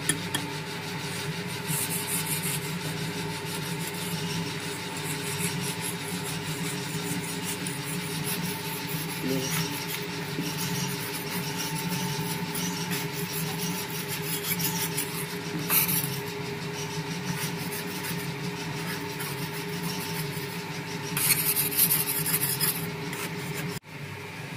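Soap dough mixer running: a steady motor hum under the rasping, scraping churn of the blades working the soap mass in the trough, louder in short spells about two-thirds of the way in and again near the end.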